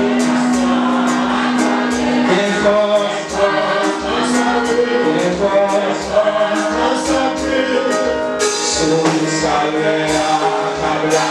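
Church congregation and worship singers singing a gospel hymn together over microphones, with a steady drum beat underneath.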